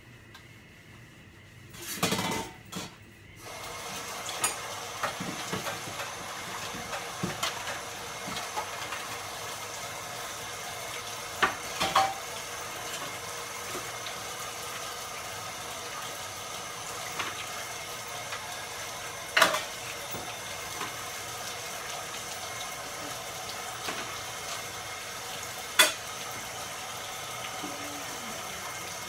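Kitchen tap starting a few seconds in and then running steadily into a stainless steel sink, with scattered clinks and knocks of things being washed and handled in the sink.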